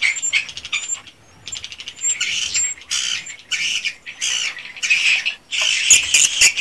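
Swiftlets calling as a crowd: dense, rapid buzzy twitters and chirps with a few short, high whistles, and a cluster of sharp clicks about six seconds in.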